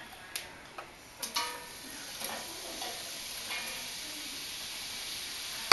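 Sliced onions going into hot vegetable oil in a stainless steel pan on medium heat and sizzling steadily, after a few light clicks and knocks in the first second or so.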